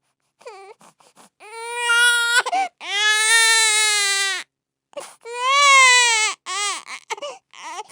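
Baby crying hard: three long wails of a second or more each, with short gasping whimpers and brief silences between them.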